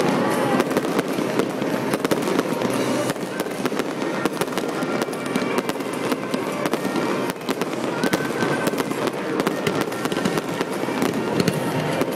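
Fireworks display going off without pause: a dense, continuous crackle of many small pops from rising crackling rockets, with no single bang standing out.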